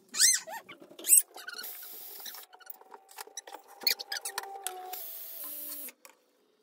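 A pet's short, high-pitched whining call in the first half second, followed by scattered small clicks and knocks and two stretches of hiss.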